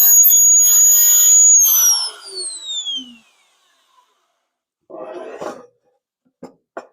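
Electric drill motor running with a high whine, then switched off about a second and a half in, its pitch falling as it spins down. A short scraping rattle follows about five seconds in, then two light clicks near the end.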